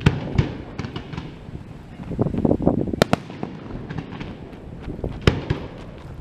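Fireworks display: aerial shells bursting in a run of sharp bangs, with a spell of rapid crackling about two seconds in and the loudest bangs around three seconds and a little after five seconds.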